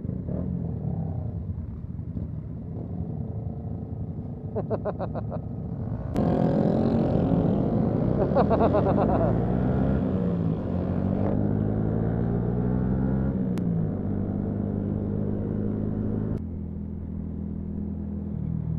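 Motorcycle engines on a group ride, led by the single-cylinder engine of a Yamaha MT-125, its pitch rising and falling with throttle and gear changes. About six seconds in it gets louder, with several engines heard at once, then drops back near the end.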